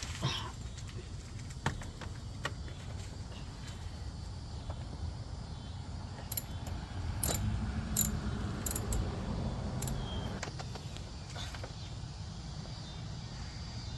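Scattered metallic clicks and clinks of a hand tool working loose one of the 8mm screws that hold a radiator fan, with a low rumble underneath.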